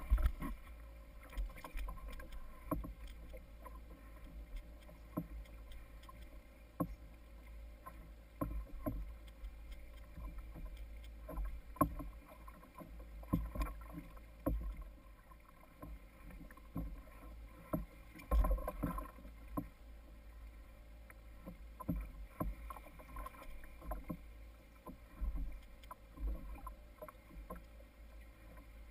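Water lapping and slapping against a plastic sit-on-top kayak hull in a light chop, with irregular knocks every second or two over a low rumble of wind and water on the camera housing.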